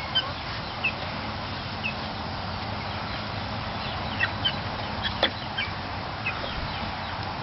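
Pet hen giving short, high calls now and then, over steady background noise, with one sharp click about five seconds in.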